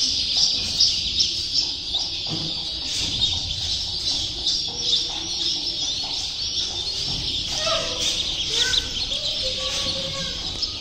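A large brood of ducklings peeping all together: a dense, continuous chatter of many high, overlapping cheeps.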